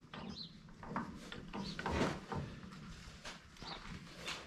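Faint, irregular metal clicks and knocks as a jack is worked with its long handle under a farm feeder wagon to lift the wheel.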